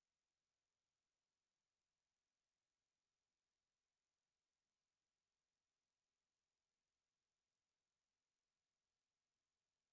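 Synthetic high-frequency crow-repellent signal, made from crow alarm calls sped up about three times into their overtone range: a steady, very high-pitched sound at the top of hearing with a fast flutter, close to inaudible.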